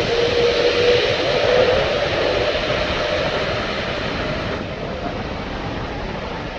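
Jet engine noise from an Emirates Airbus A380's four turbofans on departure. A steady rushing sound carries a tone that rises slightly in pitch over the first two seconds, then the noise slowly fades.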